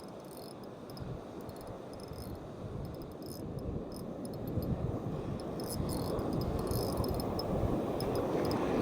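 Fishing reel being wound in against a hooked fish, giving short irregular high ticks, over a rush of surf that grows steadily louder.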